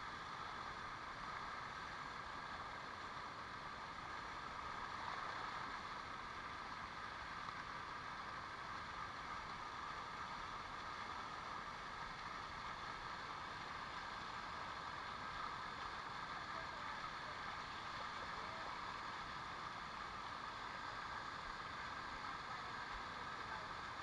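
Shallow water of a waterfall rushing steadily over rock.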